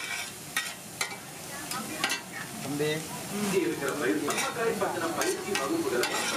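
Metal spatula scraping and tapping on a flat iron tawa as fish egg bhurji is stirred and chopped, with repeated short strikes over the sizzle of frying.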